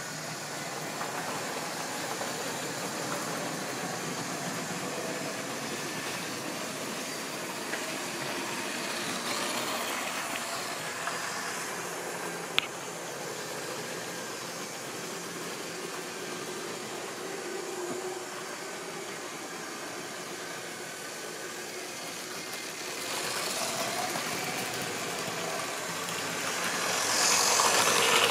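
Model railway locomotives and rolling stock running on the track: a steady whirr of small electric motors and wheels on rail. There is one sharp click about halfway through, and the sound grows louder near the end as a train passes close by.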